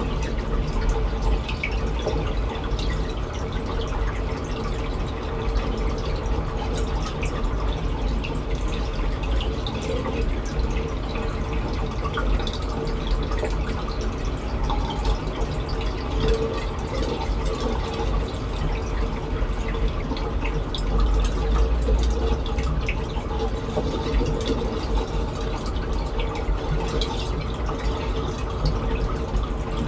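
Water in a saltwater reef aquarium trickling and dripping steadily, with many small drips over a constant low hum and rumble.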